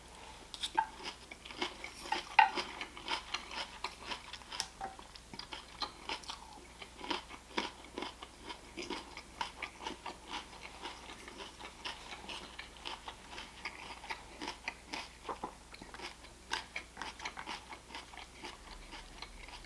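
Close-up chewing of a mouthful of crisp salad (lettuce, onion and bell pepper), with irregular crunches several times a second.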